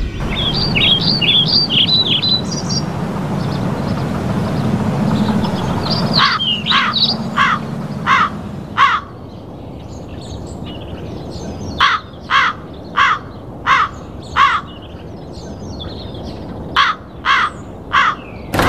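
Crows cawing in three runs of four or five harsh caws, with smaller birds chirping in the first few seconds. Under them is a steady background noise that drops away about six seconds in.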